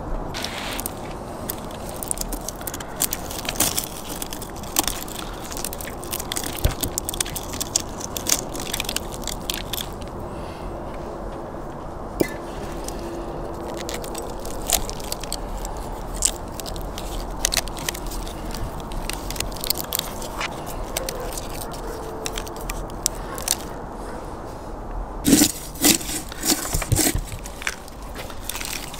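Hands handling a whole tandoor-roasted lamb on a wooden board: many small crackles and clicks of crisp skin and meat being pulled, with clinks of metal, and a burst of louder crunches and knocks near the end as the meat is pulled apart.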